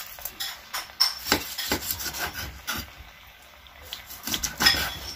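Kitchen knife cutting raw chicken wings on a wooden cutting board: irregular knocks of the blade on the board with scraping between them, the loudest knocks about a second in and near the end.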